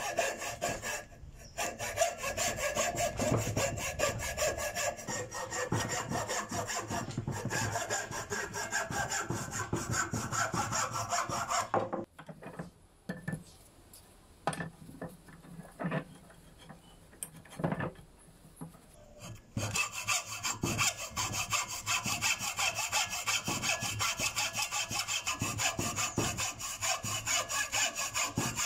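Hand hacksaw cutting through a wooden handle held in a bench vise, with steady back-and-forth rasping strokes. The sawing stops for several seconds around the middle, leaving only a few knocks, then starts again and carries on.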